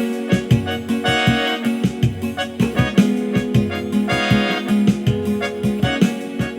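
Instrumental samba-style gospel music played on a keyboard: sustained chords and melody over a steady, busy drum beat.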